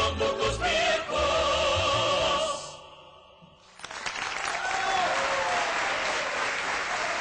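A male vocal duet with a mixed choir holds the final chord of a Colombian Andean song with accompaniment, fading out about two and a half seconds in. About a second later applause breaks out and keeps going.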